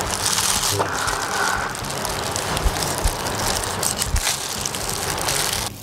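Steady rushing noise with a few soft knocks of a kitchen knife on a plastic cutting board as it cuts through a mackerel steak. The rushing stops abruptly near the end.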